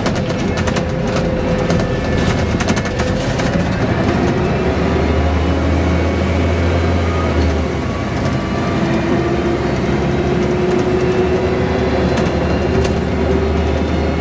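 Inside a moving Scania single-deck bus: the engine runs steadily as it drives along, with loose fittings rattling in many short clicks, busiest in the first few seconds. The engine note deepens for a couple of seconds around the middle.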